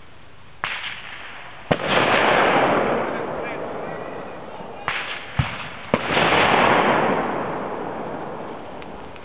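Two blasts from pyrotechnic charges. Each starts with a couple of sharp cracks and runs into a loud rushing noise that fades away over two to three seconds. The first goes off about a second in, the second about five seconds in.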